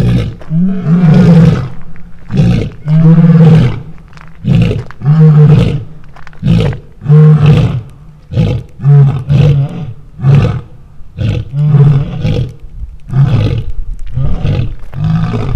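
Lion roaring in a full bout: a few long, loud roars, then a run of shorter grunting roars that come faster and closer together toward the end.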